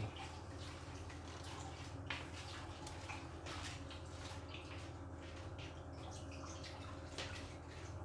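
Faint, irregular small wet clicks from a rabbit's mouth, over a low steady room hum.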